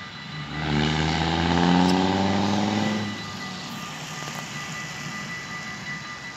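A road vehicle drives past on the wet road, its engine and tyres loudest in the first three seconds and then fading. Behind it the level crossing's warning bells ring on steadily.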